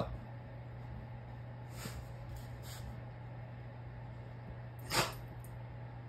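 A Rottweiler gives one short, sharp huff about five seconds in, after a couple of faint breathy puffs, over a steady low hum.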